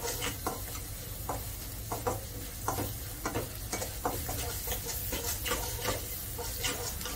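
Metal slotted spatula stirring and scraping ginger-garlic paste and chopped vegetables frying in a stainless steel pot, with irregular scrapes and clinks one or two a second over a steady sizzle.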